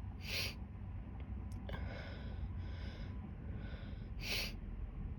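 Two short, sharp sniffs through the nose about four seconds apart, with soft breathing between: a woman sniffing after taking a sneezing powder that has not yet made her sneeze.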